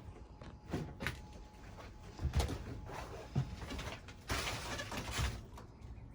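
Irregular knocks and thumps of demolition work inside a gutted camper, with a brief rough scraping rush about four seconds in.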